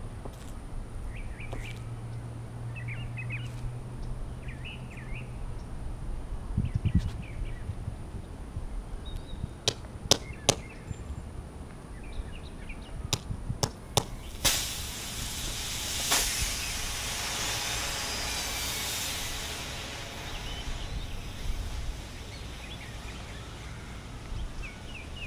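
Hammer striking a nail into an old DJI Phantom 1 LiPo battery pack, a run of sharp strikes, then the punctured pack vents with a loud hissing rush lasting about five seconds.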